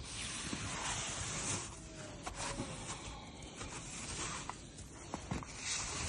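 Footsteps crunching through deep snow in a windy snowstorm: swells of hiss, with a few sharp clicks.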